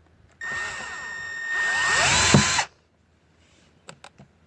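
Power drill driving a door-panel screw in a short run of about two seconds with a steady whine, louder in its second half, then stopping abruptly. A few light clicks follow near the end.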